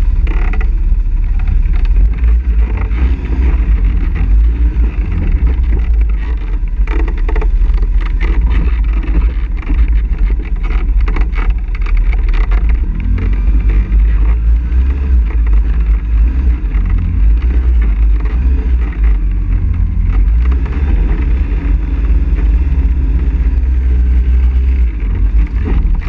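ATV engine running as the quad rides a rough trail, with a heavy low rumble and a cluster of knocks and rattles from about seven to twelve seconds in.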